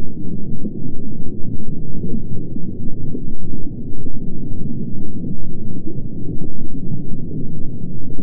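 Muffled underwater rumble heard through a camera's waterproof housing, dense and unsteady, with faint crackling clicks scattered through it.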